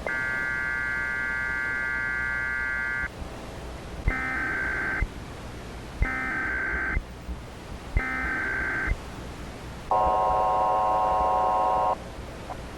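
Emergency Alert System tones. A steady electronic tone lasts about three seconds, followed by three one-second SAME header data bursts a second apart. Then comes a two-second, lower-pitched attention-signal tone.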